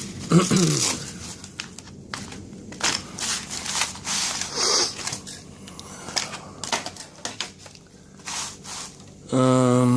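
Crinkling and clicking of a plastic blister packet and small lock-picking tools being handled, in short irregular bursts. Near the end a steady one-note hum, about a second long, is the loudest sound.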